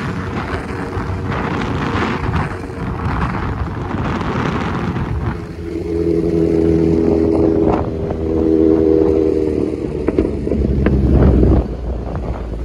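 Kawasaki Ninja Z900's inline-four engine with a full SC Project exhaust, running at low speed in traffic, with wind on the microphone. The engine note holds steady for a few seconds mid-way and swells louder and deeper near the end.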